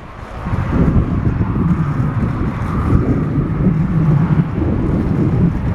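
Wind buffeting the microphone of a moving camera: a loud, steady low rumble that builds up within the first second.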